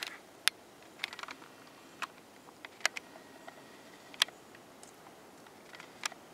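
A quiet background broken by scattered sharp clicks and ticks, about one a second, with the clearest about half a second, three seconds and four seconds in.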